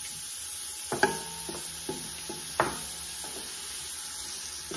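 Chopped onions sizzling in a little hot oil in a stainless steel pot, stirred with a wooden spoon that knocks against the pot a few times, most sharply about a second in and again a little past halfway.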